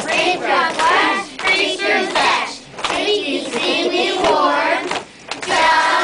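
A group of young children singing a song together, with some hand clapping.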